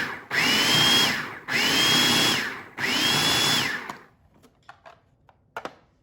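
Food processor pulsing softened cream cheese and mayonnaise: repeated one-second runs of the motor, each rising quickly to a steady whine, with short breaks between. The pulsing stops about four seconds in, followed by a few faint knocks.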